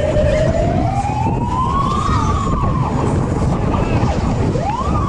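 A siren-like wail, probably the fairground ride's sound effect over its speakers, rising in pitch for about two seconds, then falling, then swooping up again near the end. Under it is a heavy low rumble of wind on the microphone as the Twist ride spins.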